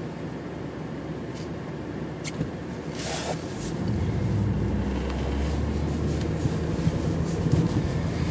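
Car engine and road noise heard from inside the cabin, a low steady hum that grows louder from about four seconds in, with a brief sharp noise just before.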